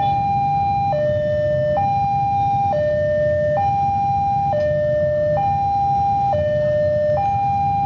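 Railway level-crossing warning alarm sounding its repeating two-tone high-low signal, each tone held just under a second, telling that a train is coming and the barriers are closed. Under it runs the low rumble of idling motorbikes waiting at the barrier.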